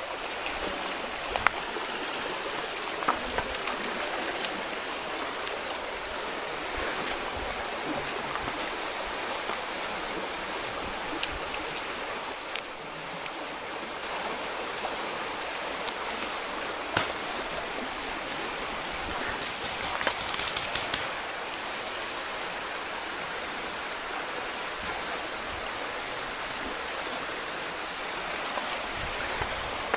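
Steady rush of flowing stream water, with scattered light clicks and snaps.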